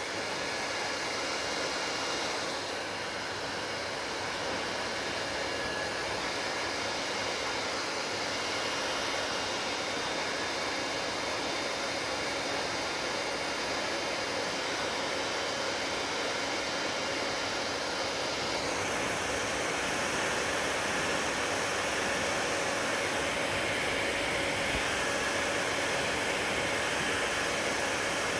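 Hair dryer blowing steadily, a continuous whooshing hiss of air and motor; about two-thirds of the way through its tone shifts and it becomes slightly louder.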